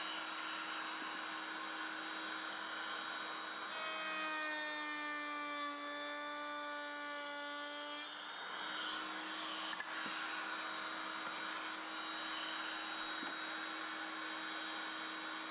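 Woodworking power tool running steadily, with a leg blank machined on it. From about four to eight seconds in, a higher whine with overtones sets in and slides slightly lower in pitch, then drops back to the plain running sound.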